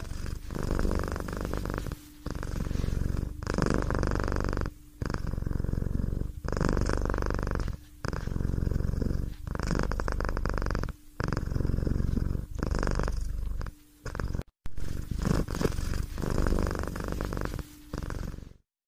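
Domestic cat purring close up, in a rhythm of breaths about every one and a half seconds; it stops abruptly near the end.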